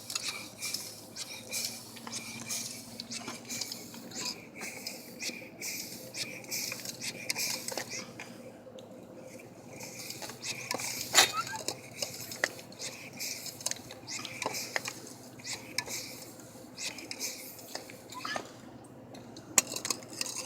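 Irregular metallic clinks and knocks of hand tools on bicycle parts during a BMX wheel and tire refit, with one louder clank about eleven seconds in.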